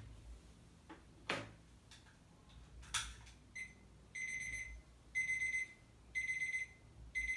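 Alarm clock beeping: groups of rapid high beeps about once a second, starting about halfway through. A couple of faint knocks come before it.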